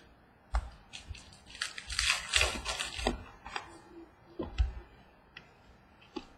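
Trading-card pack being handled and opened by hand: a couple of seconds of crinkling, rustling wrapper between scattered clicks and taps of cards and packs, with one thump about four and a half seconds in.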